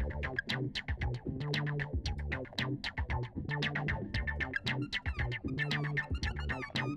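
Background music with a steady electronic beat, sharp percussion hits several times a second over a repeating synthesizer bass line.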